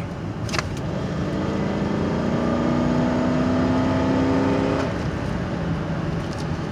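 Cadillac's Northstar V8 under full-throttle acceleration, heard from inside the cabin. The engine note climbs steadily for about four seconds, then drops away suddenly near the five-second mark, leaving a lower steady drone. The car is pulling up a steep hill, which makes the pull a little sluggish.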